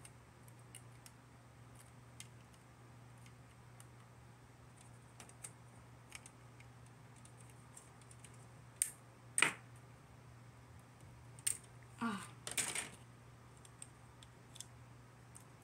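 Small plastic clicks and ticks of Gundam model-kit parts being handled and snipped from the runner with hobby nippers, with two sharper snaps a little past the middle and a short rustling clatter about three-quarters through.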